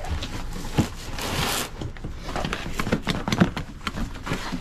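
Cardboard shipping box being opened by hand: a short tearing rip about a second in, then scraping, rustling and knocking of cardboard.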